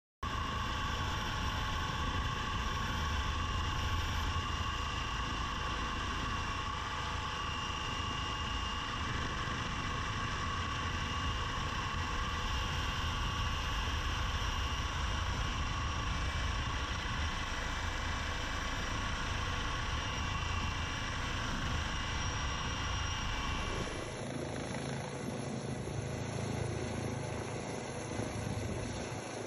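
Helicopter running steadily: a deep rotor rumble under a steady high turbine whine. About 24 s in the sound changes abruptly, with much less low rumble.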